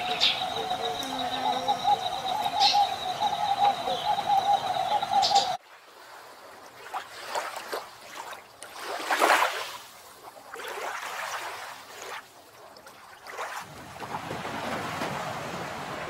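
Outdoor bird calls over a steady, wavering chorus, with a few short chirps. The chorus cuts off suddenly about five and a half seconds in. Quieter scattered sounds follow, then a steady wash of surf and wind near the end.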